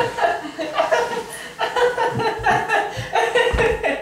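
A man laughing, short chuckles one after another.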